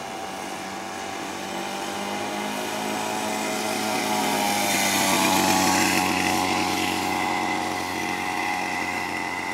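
Small engine of a children's mini quad bike running at steady speed as it comes closer, passes by about five to six seconds in, then moves away, growing louder and then fading with a slight drop in pitch.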